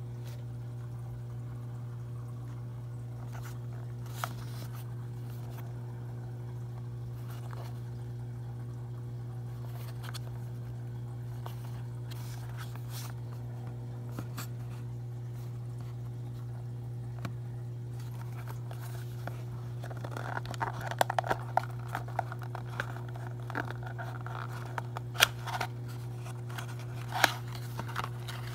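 A small cardboard model box is handled and its end flap opened, giving crinkles and a few sharp card clicks from about twenty seconds in. A steady low hum sits under it.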